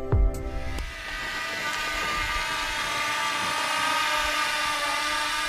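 Background music cutting off about a second in, followed by a steady high whine made of several fixed tones.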